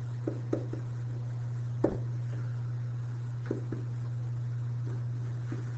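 Scattered light taps and clicks of a stylus writing on a pen surface, the loudest about two seconds in, over a steady electrical hum.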